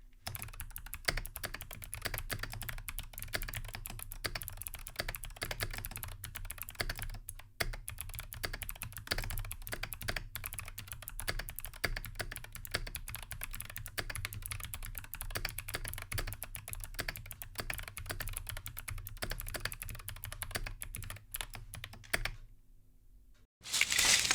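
Continuous fast typing on a Keychron V6 mechanical keyboard: a dense, irregular stream of keystroke clicks that stops a couple of seconds before the end. Near the end a loud sudden burst follows.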